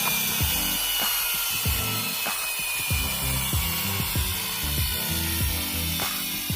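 Battery-powered toy vehicle's electronic sound chip playing a tinny, blocky tune with high tones drifting downward, over repeated sharp plastic clicking from the toy's mechanism.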